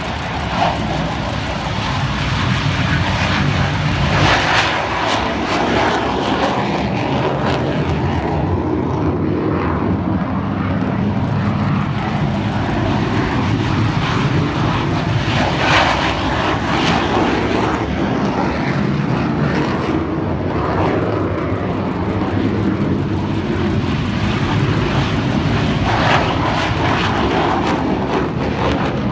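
Military aircraft engines running on an airfield, a loud continuous drone that swells a few times.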